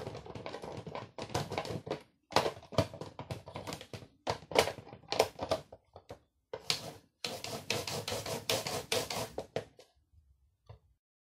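A piece of fruit rubbed back and forth over the grating blade insert of a plastic mandoline slicer, in quick runs of scraping, clicking strokes that stop about ten seconds in.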